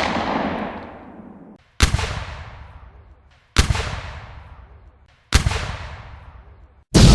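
Heavy gunshots in a war sound effect: single shots about every second and three-quarters, each with a long rolling echo that fades away. Near the end a louder, sustained blast begins.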